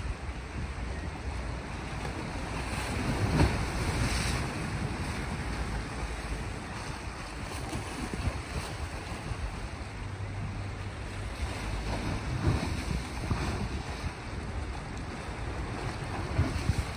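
Small sea waves washing against a rocky shore, the wash swelling and falling several times, most strongly about three seconds in. Wind buffets the microphone throughout with a low rumble.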